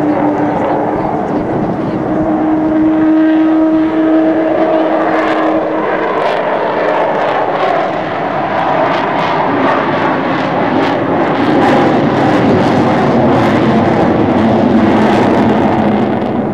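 Avro Vulcan XH558's four Rolls-Royce Olympus turbojet engines as the delta-wing bomber flies past overhead. A steady low tone sits over the jet roar for the first six seconds or so, then it opens into a broader rushing roar.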